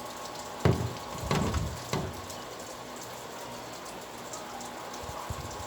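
Steady rain falling, with a few louder low thuds: one just under a second in, a cluster around a second and a half, and one at about two seconds.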